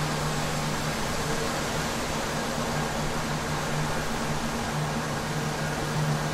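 Steady wind rushing on the microphone, with a faint low hum that comes and goes underneath.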